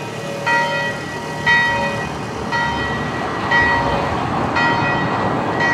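A church bell tolling steadily, about one stroke a second, each stroke ringing briefly before the next.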